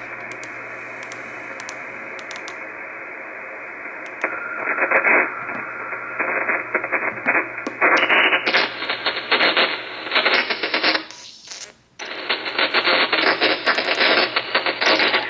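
Reuter RDR54 shortwave receiver's audio: steady narrow-band hiss from an empty channel in single-sideband mode, then, after retuning to the 15.6 MHz shortwave broadcast band with a wider 6 kHz filter, louder, wider crackling static and noise. The sound drops out briefly about three-quarters of the way through, during retuning.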